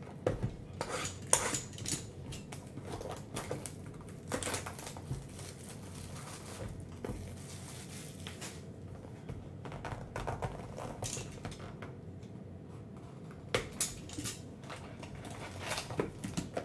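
A cardboard trading-card box being unwrapped and opened by hand: plastic shrink-wrap crinkling and cardboard flaps and lid scraping and tapping, in short bursts a few seconds apart.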